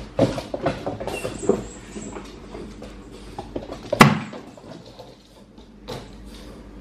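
Boxer puppy playing with a toy chicken on a laminate floor: quick clicks and knocks of paws and toy in the first couple of seconds, then a sharp loud thump about four seconds in and a smaller knock near six seconds.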